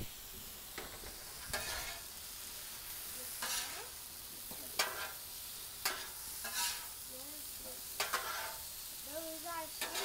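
Metal spatula scraping and stirring apple chunks in butter, cinnamon and sugar across a hot Blackstone steel griddle, in strokes about once a second, over a steady sizzle of the food frying.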